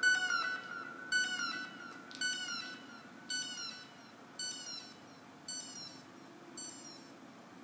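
Dubstep music fading out: a repeated electronic sound with a falling pitch, about once a second and each quieter than the last, over a held tone that dies away.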